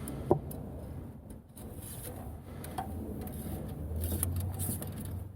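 Metal engine-oil dipstick being pushed back into its tube, with a sharp click about a third of a second in as it seats, followed by light handling noises and a low hum that comes up about three and a half seconds in.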